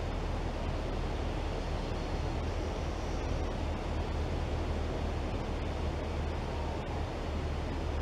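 Steady outdoor background noise: an even low rumble with a hiss over it, with no distinct events.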